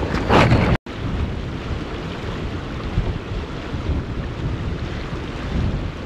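Wind buffeting the microphone over the steady rush of a river. The sound drops out for an instant about a second in.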